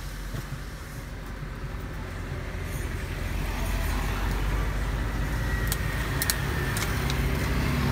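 Motor vehicle engine running close by on the road, growing louder about halfway through as it comes nearer, with a few sharp clicks near the end.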